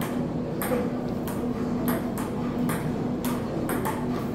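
Table tennis rally: the celluloid-type ping-pong ball clicking off the paddles and bouncing on the JOOLA table, about two to three sharp clicks a second in a steady back-and-forth rhythm.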